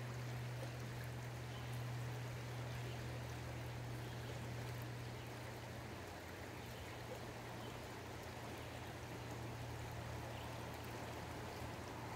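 A shallow, stony river flowing: a steady rush of water over rocks, over a steady low hum.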